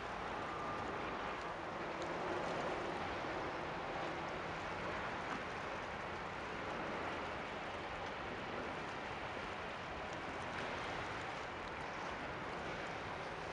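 Steady rushing wash of water from the bow wave of a passing ro-ro general cargo ship.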